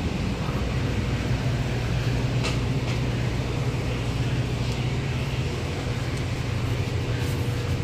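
Steady low hum of a store's ventilation and air conditioning, with a few faint clicks and taps.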